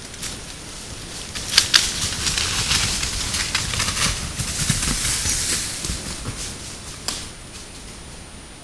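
Rustling and crackling in the leaf litter and undergrowth as sika deer move off out of view: a dense run of irregular clicks and snaps, with two sharp snaps loudest about one and a half seconds in, dying away with a last single click near the end.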